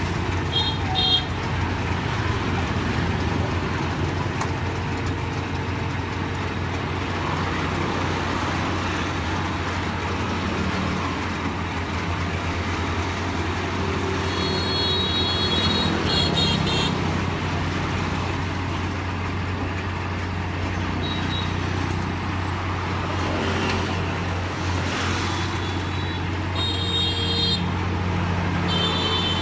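Kubota combine harvester's diesel engine running with a steady low hum as the tracked machine is driven down loading ramps off a truck. Short high beeps sound several times, about a second in, in the middle and near the end.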